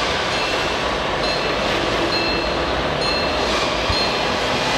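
Model steam locomotive running along its track, pulling a loaded flat wagon: a steady rolling of wheels on rails, with short, faint high-pitched tones now and then.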